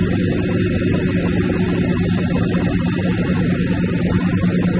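Caterpillar C12 diesel engine of a 1997 Kenworth dump truck idling with a steady low hum.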